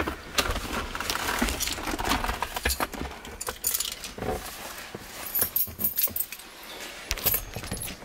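A quick run of small clicks and rattles with rustling, from things being handled and people moving about in the SUV's cabin. It thins out about halfway through.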